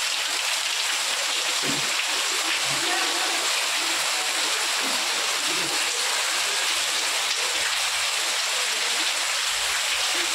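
Heavy rain pouring down steadily onto wet paving and puddles, an even rushing noise.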